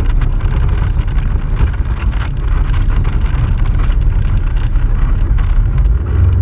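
Polaris RZR XP4 1000 side-by-side under way on a rocky trail: a steady low engine rumble with wind buffeting the microphone and frequent knocks and rattles from the rough ground.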